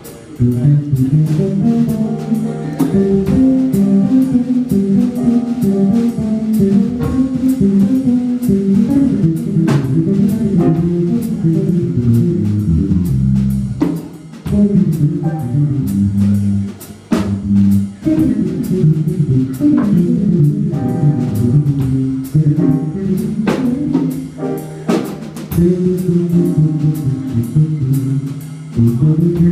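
Live band playing guitar, drum kit and keyboard, with a couple of brief breaks about halfway through.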